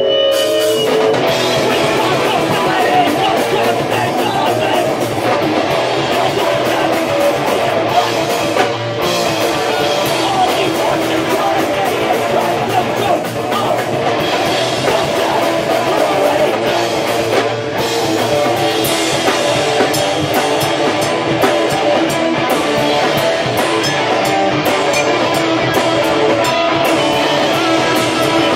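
Rock band playing a song live, with electric guitar and a drum kit, loud and dense throughout.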